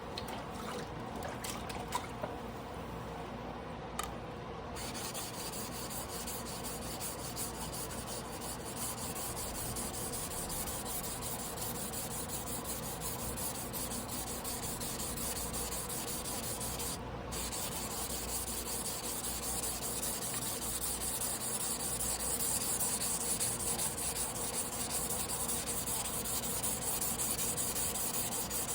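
A Damascus carbon-steel sashimi knife blade being rubbed back and forth on a sharpening whetstone by hand, a steady gritty scraping. A higher hiss joins about five seconds in and drops out briefly about two-thirds of the way through.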